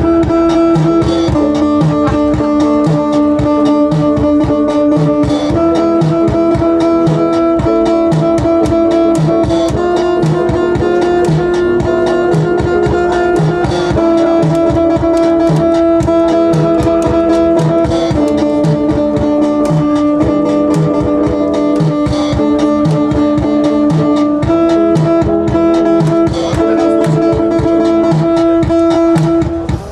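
Live music on a Casio electronic keyboard and a guitar: held chords that change about every four seconds over a steady drum beat.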